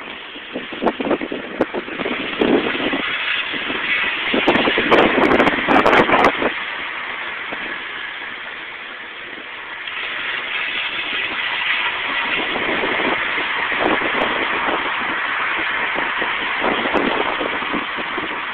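2000 Nissan Maxima in motion with a grinding noise from a wheel on a left turn, rough and uneven in the first six seconds, then steadier. The grinding comes from a bent brake pad rubbing against the thin round metal sheet of the brake dust shield.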